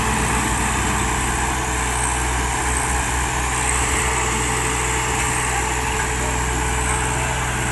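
Diesel engines of two farm tractors, one a Swaraj, running steadily under heavy load as they pull against each other in a tug-of-war.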